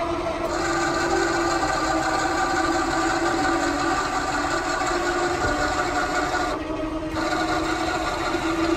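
Electric motor of an Autolift motorhome stabiliser leg running steadily, a whine holding one pitch as it drives the leg, with a brief change in tone about two-thirds of the way through.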